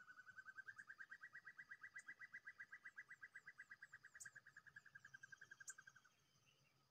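Faint, distant bird trill: one long run of rapid notes, about ten a second, rising a little in pitch over the first second or so, then steady, and stopping about six seconds in.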